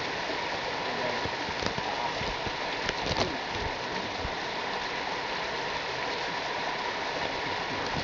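Water from a small waterfall splashing down a wet rock gully: a steady rushing hiss, with a few short clicks about one and a half and three seconds in.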